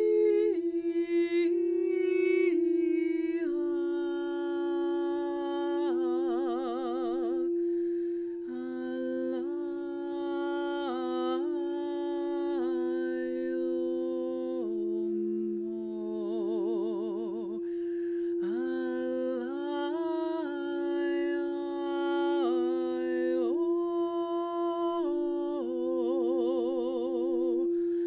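A woman's wordless singing, long held notes stepping up and down in pitch, several of them wavering with vibrato, over the steady unbroken ring of a crystal singing bowl.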